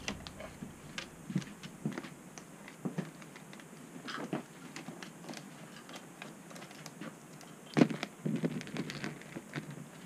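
Amazon parrot's claws tapping and scratching on a wooden tabletop as it walks, in scattered light clicks, with a sharper knock and a flurry of taps about eight seconds in.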